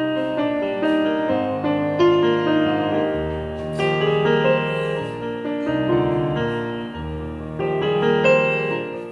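Instrumental piano music: a melody over a slow-moving bass line.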